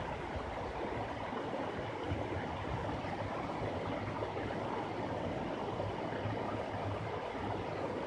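Small waterfall cascading down a rock ledge into a pool: a steady, even rush of falling water.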